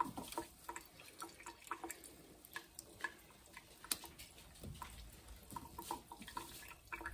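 Faint, irregular drips and small taps of water in a sink as asparagus spears are rinsed and handled.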